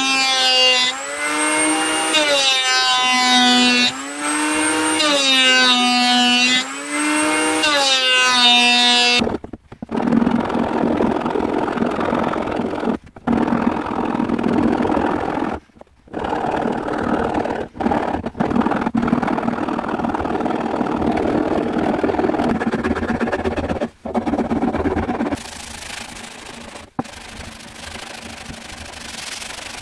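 An electric hand planer shaves a wooden handle, its motor note dipping under load and recovering with each pass, about every two seconds. After about nine seconds a file rasps steadily on the wood, and near the end a sanding block rubs the handle more quietly.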